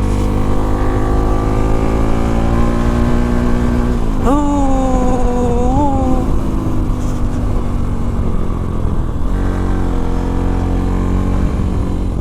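Modified Bajaj Pulsar NS200's single-cylinder engine running hard on the move. Its pitch climbs for about four seconds, then drops sharply into a stronger, steadier tone for about two seconds before carrying on.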